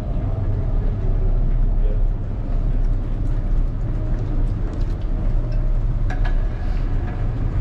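Steady low rumble with the faint murmur of a group of people talking, and a single sharp click about six seconds in.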